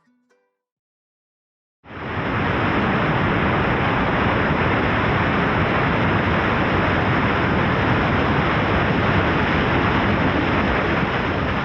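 Steady rush of a waterfall and rapids, starting suddenly about two seconds in after a short silence.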